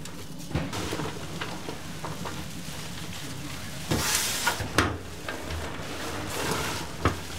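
Gloved hands tossing and mixing sliced onions and chopped parsley in a large steel tray: rustling, with a louder rush of tossed handfuls about four seconds in and again near the end, and a few sharp knocks.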